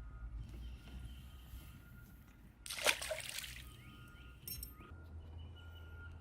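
Faint water sloshing and trickling, with one short splash about three seconds in.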